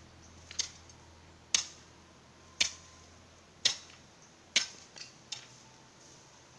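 A series of sharp clicks or knocks, about one a second, with a quick double knock near the end.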